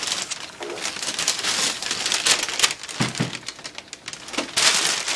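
Heavy-duty plastic bag rustling and crinkling in irregular bursts as it is pulled off from around a laser printer, loudest near the end, with a couple of dull thumps about three seconds in.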